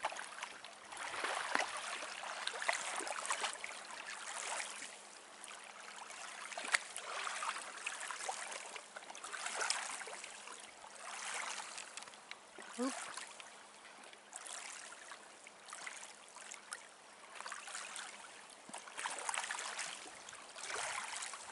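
Small waves lapping on a lakeshore: a wash of water that swells and fades every second or two.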